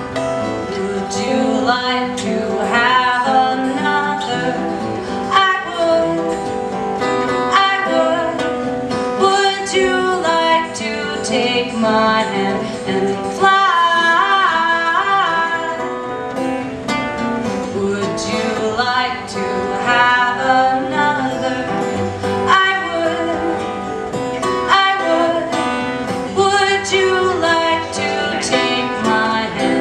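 A band playing a song: guitar with a singing voice over it.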